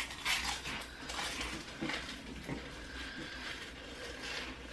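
Two people crunching and chewing mouthfuls of dry saltine crackers, about ten crammed in at once, with irregular crackling and muffled, wet mouth noises.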